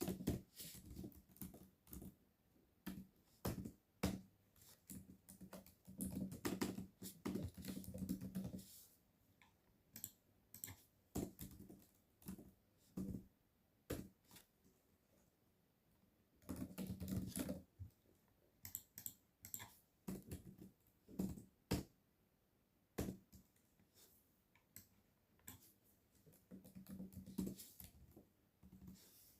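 Typing on a computer keyboard: uneven keystrokes with two short flurries of fast typing and pauses between.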